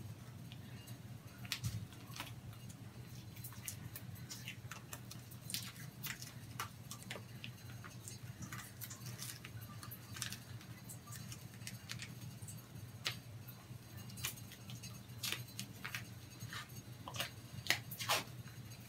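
Faint, scattered crinkles and crackles of a thin transparent plastic shower barrier being handled and peeled off an arm, over a steady low hum.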